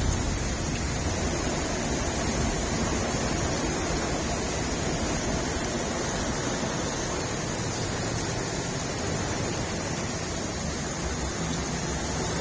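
Heavy rain pouring down in a steady downpour.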